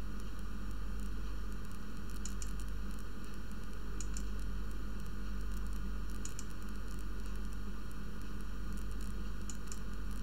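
Steady background hiss and low mains hum from a home recording setup, with a few faint mouse clicks spread through.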